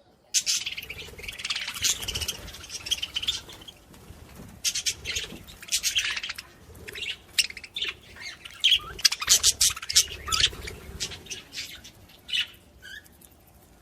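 Small pet birds chirping and squawking in quick, busy calls that start suddenly just after the start and thin out near the end.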